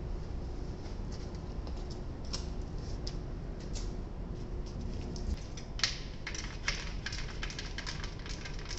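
Scattered light clicks and taps of metal parts and tools being handled, growing thicker in the second half, over a steady low hum.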